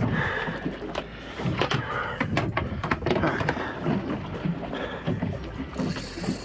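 Irregular clicks and knocks of fishing rod and reel gear being handled on a small boat during a fight with a fish. A steady high whine sets in near the end.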